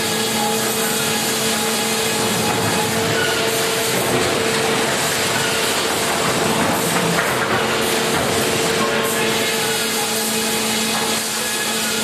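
Grey Series 2000 flitching and resaw bench running: the saw cutting timber while its motors and roller conveyors keep up a loud, steady din with a constant hum.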